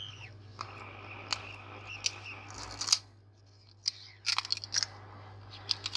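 Sharp clicks and scrapes of a small metal tool working at the glued back glass of an iPhone X while it is pried loose, with a cluster of quick clicks about four seconds in.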